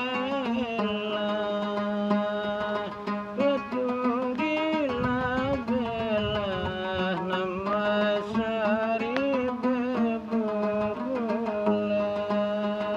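A man singing a slow melody whose pitch slides and wavers, accompanying himself on a gambus, a plucked lute, over a steady low held note.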